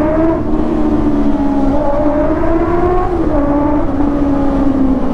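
Honda CBR650R inline-four motorcycle engine running under the rider, its pitch rising at the start, holding, dipping about three seconds in and easing down near the end as the throttle is worked in slow traffic.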